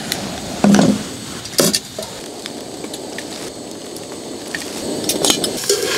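Steady hiss of a lit canister gas stove burner, with a few sharp metallic knocks and clatters of cookware: two close together in the first two seconds and another near the end.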